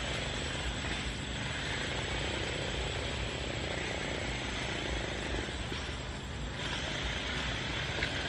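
Steady outdoor background noise: a low rumble under a high hiss, the hiss dipping for about a second about two-thirds of the way through.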